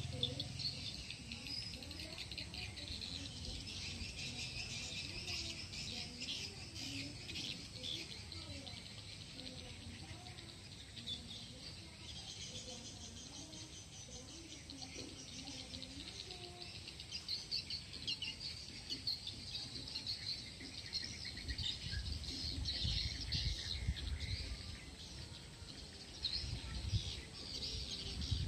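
Dense chirping of insects and birds, with low rumbles in the last several seconds.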